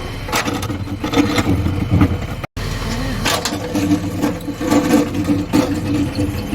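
JCB backhoe loader's diesel engine running under work, with repeated metallic knocks and scrapes from the digging equipment. The sound cuts out for an instant about two and a half seconds in.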